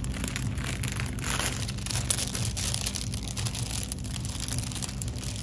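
Clear cellophane treat bag crinkling as it is handled, over a steady low hum.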